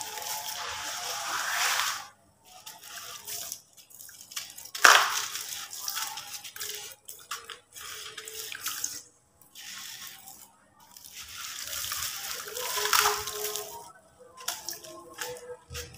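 Hands squeezing and crumbling lumps of gritty sand cement into a bucket of muddy water: water sloshing and dripping with gritty crumbling, in swells with short quiet gaps between them, and one sudden loud burst about five seconds in.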